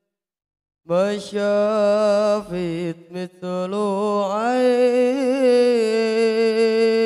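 A boy's solo voice singing unaccompanied into a microphone, starting about a second in: long held notes that slide between pitches, with a wavering ornament about midway.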